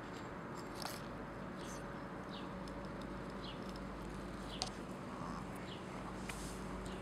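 Cat gnawing on a thin dry twig: faint scattered crunching clicks, with one sharper snap about four and a half seconds in.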